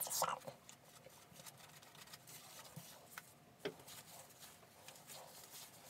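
Faint rustling of gloved hands working hair dye through strands of long hair, with a few small clicks.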